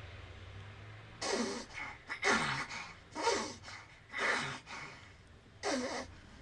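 Snoring: five short snores about a second apart, with a slightly longer gap before the last, several of them falling in pitch.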